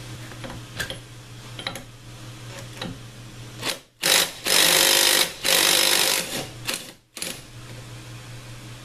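Cordless Makita impact driver hammering in two bursts of about a second each, with a short third burst, as it undoes the fastener on the oil pump gear. A few light metal clicks come before it.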